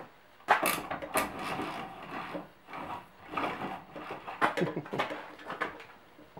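Irregular light knocks, clicks and rustling as tools and parts are handled at close range.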